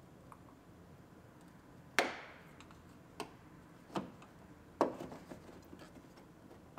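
Four sharp clicks about a second apart, the first the loudest, from a metal pick prying around a 2007 Honda Civic Si's exterior door handle, breaking the gasket that has stuck to the door panel loose.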